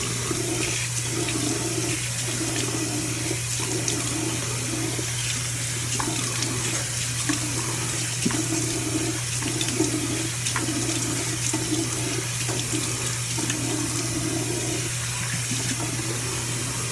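Tap water running steadily into a bathroom sink, with repeated splashing as a face scrub is rinsed off the face with handfuls of water.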